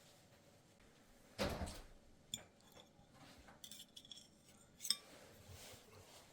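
Quiet kitchen handling: a soft knock with a brief scrape about a second and a half in, then scattered light clinks of utensils against dishes, some of them ringing briefly, and a sharper click near the end.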